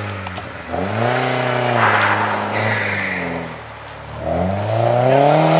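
Rally car engine revving hard on a gravel stage: it climbs in pitch about a second in, holds, drops away near the middle, then climbs again.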